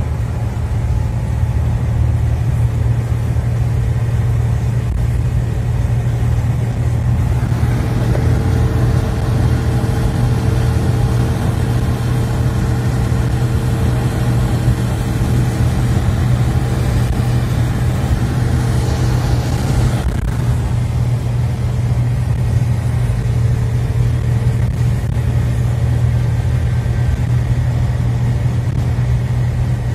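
Cabin noise of a moving vehicle on a wet road: a steady low engine drone with tyre hiss. About 8 seconds in, a brighter hiss with a faint steady tone joins it, then cuts off abruptly about 20 seconds in.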